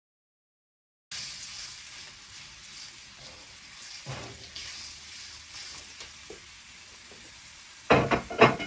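Grated garlic sizzling in hot oil in a wok and being stirred with a silicone spatula, starting about a second in. Near the end come a couple of louder knocks.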